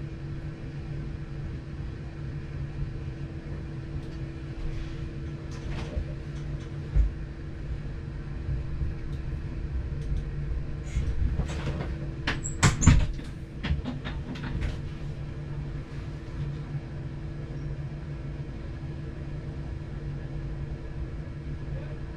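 Train running along the line, heard from the cab: a steady engine and running drone with a low hum. Several sharp clicks and knocks come a few seconds in, and a denser clatter comes around the middle, loudest about 13 s in.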